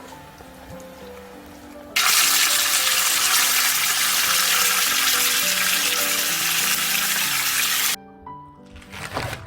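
Steady rush of running water, loud and even for about six seconds, starting and stopping abruptly, over light piano background music.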